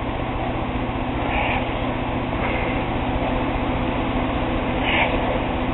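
Siamese cat purring steadily, very close to the microphone: a continuous low, fast-pulsing rumble.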